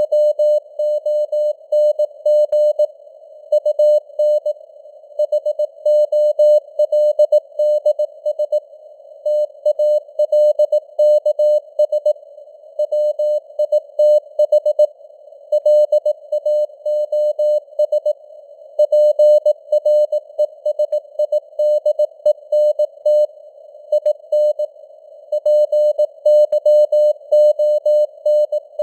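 Morse code (CW) sent as a single mid-pitched tone keyed in dots and dashes at 18 words per minute. It sits in a narrow band of simulated radio receiver noise, with the signal strength fading up and down (QSB).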